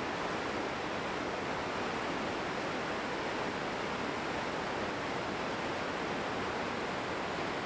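Floodwater in a river in flash flood rushing over rapids and rock ledges: a steady, unbroken whitewater rush.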